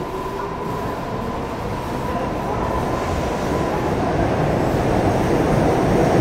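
Old Seoul Metro 2000-series resistor-controlled subway train pulling out and accelerating: traction motor hum rising in pitch near the start, with running and rail noise growing steadily louder.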